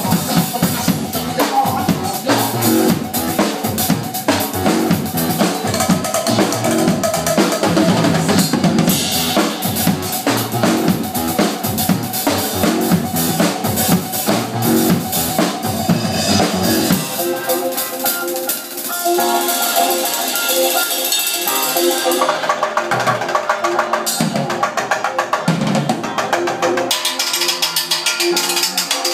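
Mapex drum kit played hard, bass drum, snare and cymbals, over a recorded song. About 17 seconds in the drumming stops and the song carries on alone.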